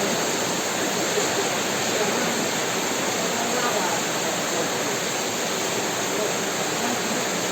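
Heavy rain falling steadily, a dense even hiss of water without thunder.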